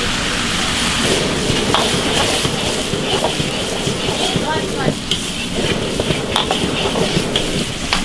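Food sizzling and frying in a large wok, with scattered sharp clinks and scrapes of the stirring through a steady hiss.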